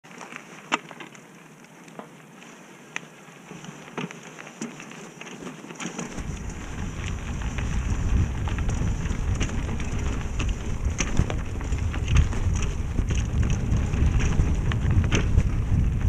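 Mountain bike rolling down a dirt and rock trail, with sharp clicks and rattles from the bike and tyres. About six seconds in, a low wind rumble on the camera microphone starts and builds as the bike picks up speed.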